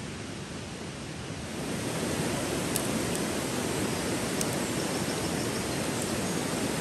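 Shallow river rushing over stones: a steady rush of water that grows louder about a second and a half in, with a few faint clicks.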